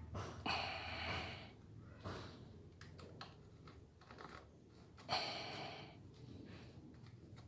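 Two long, noisy breaths close to the microphone, about half a second in and again about five seconds in. Between them come a few light clicks and taps from a small metal tool and screw being worked at a backpack brush cutter's plastic recoil-starter housing.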